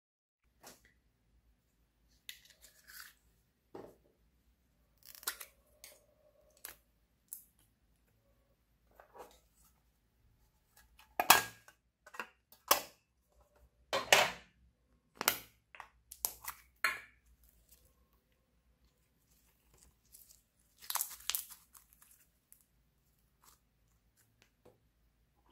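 Small containers being handled: scattered sharp clicks, knocks and crinkles with quiet gaps between them. The loudest cluster comes about halfway through, as a metal tin box is opened. A noisier scrape or crinkle follows later.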